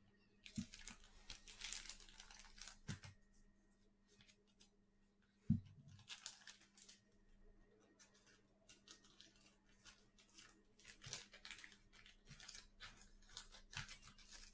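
Mosaic Basketball mega box and its card pack wrappers being torn open by hand: repeated bursts of tearing and crinkling, with one sharp knock about five and a half seconds in.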